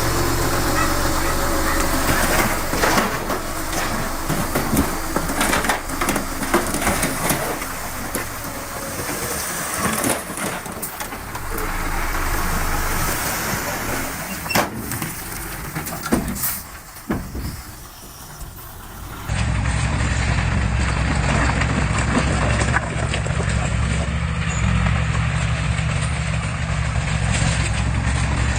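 Diesel engines of heavy earthmoving equipment running, with many sharp knocks and clanks over a noisy rumble. After an abrupt cut about two-thirds of the way through, a steadier low engine drone follows.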